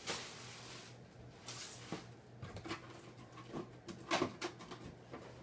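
Plastic garbage bag rustling, then a scatter of short knocks and rustles as the bag-wrapped bundle is pushed into a cardboard box, the loudest knocks about four seconds in.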